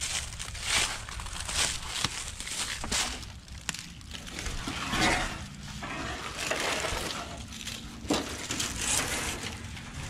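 Footsteps crunching and rustling through thick dry fallen leaves in uneven bursts, with a few sharp clicks.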